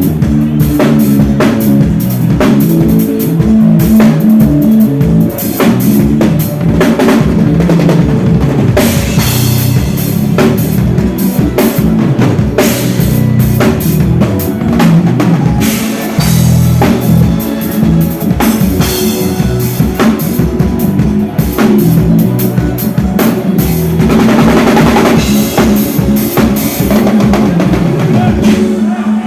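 A live band playing an instrumental passage at a soundcheck. The drum kit, with bass drum and snare, keeps up a steady beat over sustained low notes.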